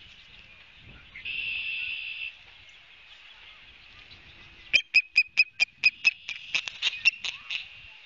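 Osprey alarm calling. First comes one held, high whistled note, then after a pause a rapid run of about fifteen sharp, high chirps at about six a second, loud at first and fading toward the end.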